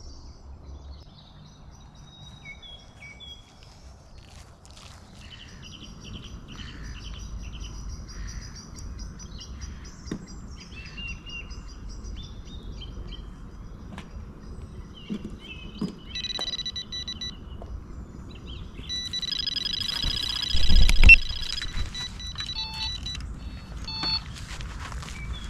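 Birds singing, then a Delkim TXi-D carp bite alarm sounding: one beep about 16 seconds in, then a continuous tone of about two seconds as a fish takes line, a sign of a run. A loud thud comes during the tone, and a few short beeps follow as the rod is picked up.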